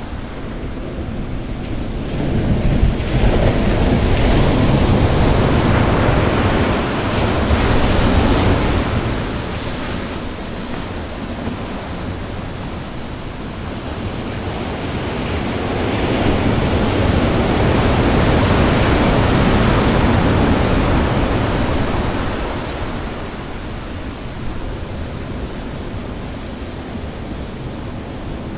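Sea surf breaking on a beach: a steady wash of waves that swells louder twice, for several seconds each time, and then eases back.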